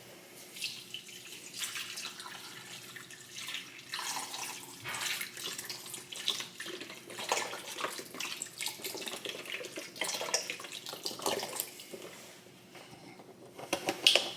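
Beef broth being poured into a slow cooker, the liquid splashing in uneven spurts.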